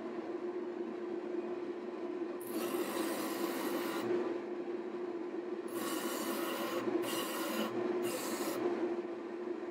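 Lathe-mounted sanding disc spinning with a steady hum while a black walnut block is pressed against it, giving a rasping hiss of sanding four times: a longer pass about two and a half seconds in, then three short ones in the last four seconds.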